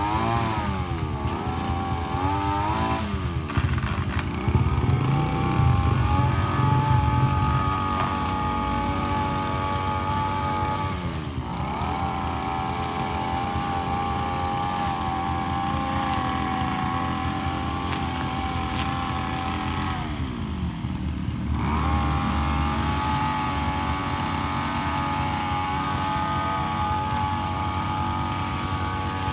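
Small two-stroke engine of a backpack power sprayer running steadily at high speed. Its revs sag and climb back again several times in the first few seconds, once about eleven seconds in and once about twenty-one seconds in.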